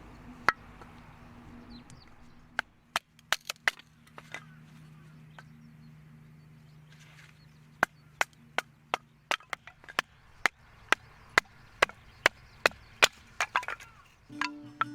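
A knife chopping on a wooden board: sharp wooden knocks, a few scattered strikes at first, then a steady run of about two to three a second.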